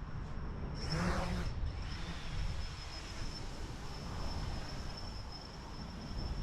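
Wind buffeting the microphone, with a thin steady high-pitched tone setting in about a second in and a brief short sound at about the same moment.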